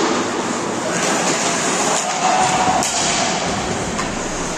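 Ice hockey game sounds in a rink hall: skates scraping across the ice and players shouting, with one sharp knock about three seconds in.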